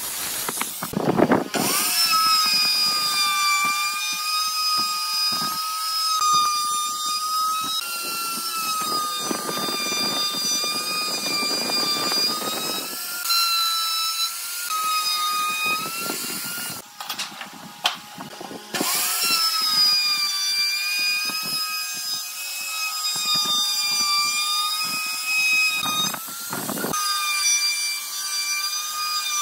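An electric woodworking power tool's motor whining at high speed while it cuts wood, with rough cutting noise under the whine. It cuts out about a second in and again past the halfway mark, and each time it spins back up.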